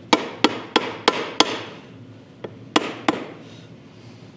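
A hammer tapping the roll-up window glass and channel down into its rubber seal, to seat the seal all the way: five quick taps, then after a short pause one light tap and two more.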